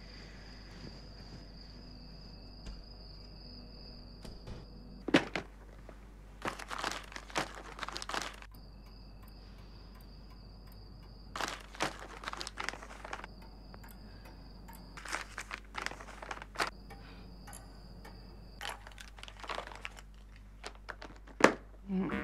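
Small objects being handled and rummaged through: about eight clusters of quiet clicks, knocks and crinkling. A faint, high, steady whine is heard in the pauses between them.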